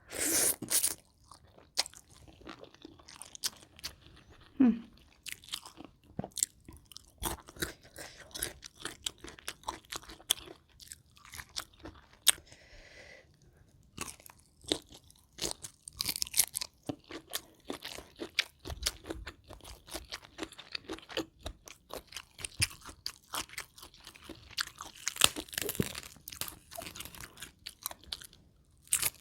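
Close-up chewing and crunching of mouthfuls of a spicy rice-noodle salad with raw shrimp and fresh vegetables, with irregular crisp crunches throughout and a loud cluster at the start.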